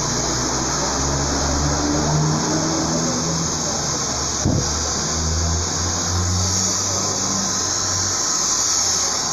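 Handheld hair dryer running steadily, blowing air through hair during a blow-dry, with a motor hum under the rushing air. A single sharp click about halfway through.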